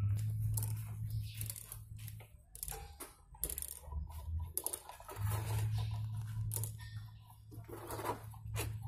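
Short metallic clicks, taps and scrapes of a hydraulic gear pump's housing and shaft being handled and fitted together by hand, over a steady low hum that drops out for a couple of seconds in the middle.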